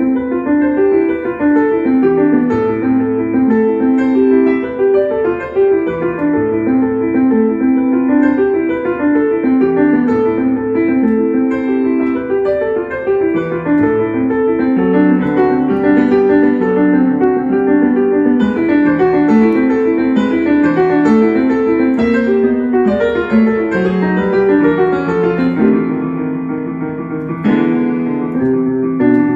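Solo piano piece played on a digital piano: a continuous flow of quick notes over slower, lower bass notes, with a louder chord struck near the end.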